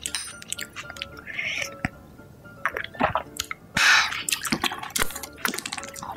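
Eating at a table: sharp clicks and clatter of chopsticks and dishes with chewing, over quiet background music. The loudest sound is a short burst of noise about four seconds in.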